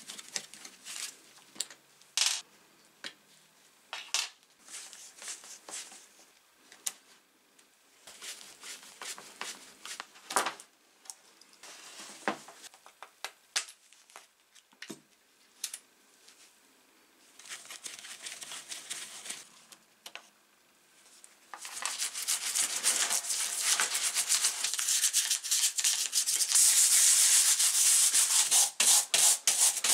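Scattered clicks and scrapes of a screwdriver and small plastic and metal parts as an angle grinder is taken apart. About two-thirds of the way in, a stiff bristle brush starts scrubbing the grinder's housing parts in soapy water, a loud, steady rasping that continues from then on.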